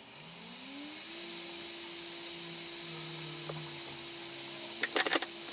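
Laptop optical drive spinning up a boot disc: a whine that rises in pitch over about a second and then holds steady, with an airy hiss over it. A quick cluster of clicks comes about five seconds in, as the drive reads the disc.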